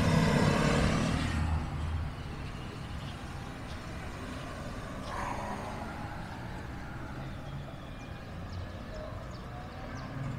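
Motorcycles passing close by on the street, their engines loud for about the first two seconds and then dying away, leaving faint traffic in the background.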